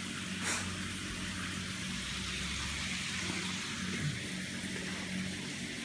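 Steady background hiss with a low hum, and one brief soft rustle about half a second in.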